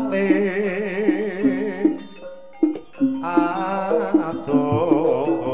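Javanese jaranan gamelan music: struck pot-gongs and metallophones repeating a short melodic figure, with a long, wavering lead melody above them. The music thins out for about half a second around two seconds in, then resumes.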